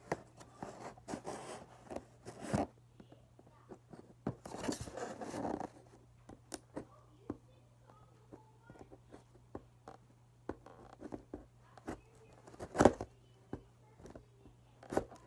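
A Tech Deck skate park set's cardboard box and packaging being worked and torn open by hand: short bursts of rustling and scraping with scattered clicks, and a sharper, louder rip or knock near the end, over a faint steady low hum.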